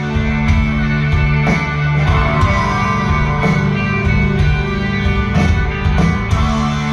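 Live rock band playing a guitar-led instrumental passage with a steady beat, heard from within the audience.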